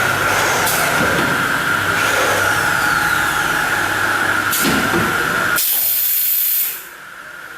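CNC corner cleaning machine for welded uPVC window frames running, a steady high tone over noisy machine sound with a few knocks. About two-thirds of the way in, a loud hiss sounds for about a second, then the machine goes much quieter.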